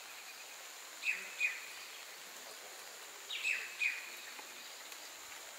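A bird calling in pairs of short notes, each sliding down and then briefly held, a pair about a second in and another about two seconds later, over a steady high-pitched drone.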